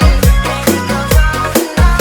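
Electronic dance music with a heavy kick-drum beat about twice a second under sustained synth chords.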